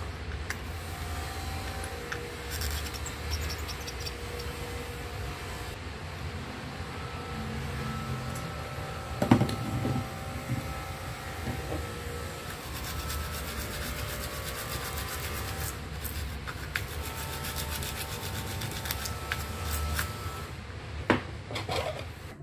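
Scraping and rubbing noise from desoldering work on a monitor's circuit board, over a steady low hum. There is a sharp click about nine seconds in and another near the end.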